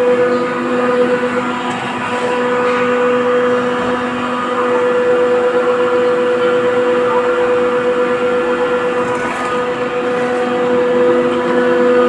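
Rotary screw air compressor running steadily: a loud, even mechanical hum with a constant whine over a rushing noise.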